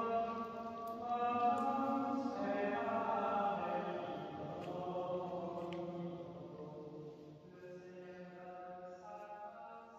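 Liturgical chant sung by a small group of voices in slow, held notes, ringing in the echo of a stone church. The singing fades away over the last few seconds.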